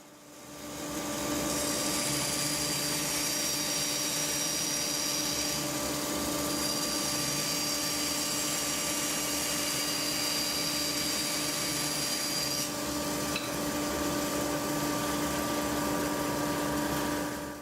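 Bandsaw running steadily while bevel-cutting the corners off a square wood blank, its hum building up over the first second or so. A high whine comes in twice, for about four and six seconds.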